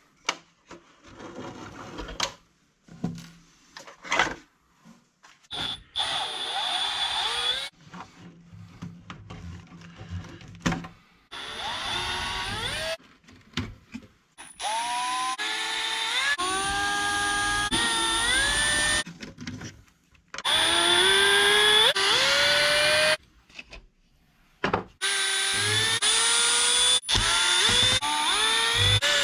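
Cordless electric screwdriver running in repeated short bursts, its motor pitch climbing steeply each time it spins up and then holding. Short clicks and knocks fall between the first few runs.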